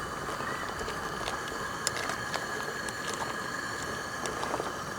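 Pot of pumpkin cooking on the stove, simmering with scattered small pops and crackles over a steady background hiss.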